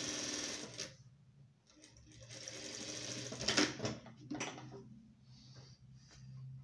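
Industrial straight-stitch sewing machine stitching a fabric strip in two short runs: the first stops about a second in, and the second runs from about two seconds in to nearly four, ending in sharp clicks. A steady low hum continues between the runs, and near the end there are a few light snips as scissors cut the strip.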